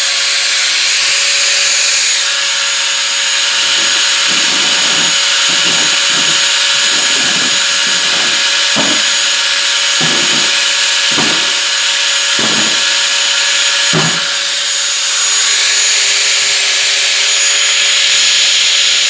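Power tool cutting through microwave fan motors to separate their copper windings from the steel. It runs with a steady high whine and hiss, and from a few seconds in it gives about ten heavier surges, roughly one a second, as it bites into the metal.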